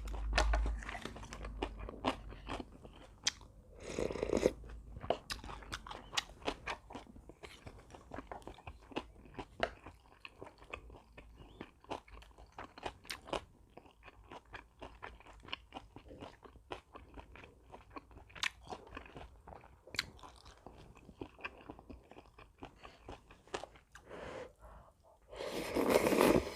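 A person eating close to the microphone: crunching and chewing with many small mouth clicks, and two louder, noisier stretches, about four seconds in and just before the end.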